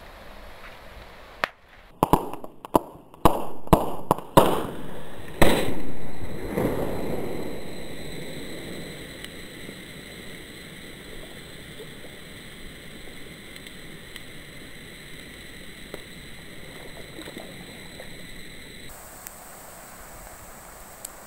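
A large lump of sodium metal reacting violently with water, exploding in a rapid string of about eight sharp bangs starting about two seconds in, the loudest one around five seconds in. A rushing hiss follows and fades away over the next few seconds.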